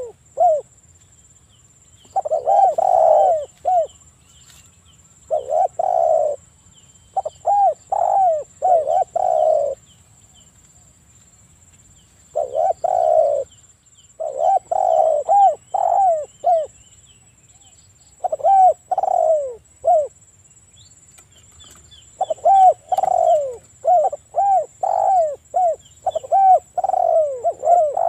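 Spotted dove (tekukur) cooing: phrases of several quick, falling coos, each phrase a second or two long, repeated with short pauses between them.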